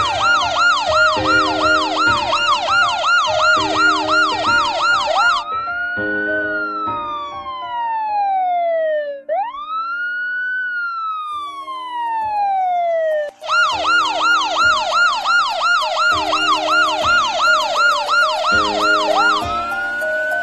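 Electronic emergency-vehicle siren of an animal ambulance, switching between a fast yelp of about three sweeps a second and a slow wail that rises and falls over several seconds. The pattern goes yelp, then two slow wail cycles about a third of the way in, then yelp again, with the wail starting once more near the end.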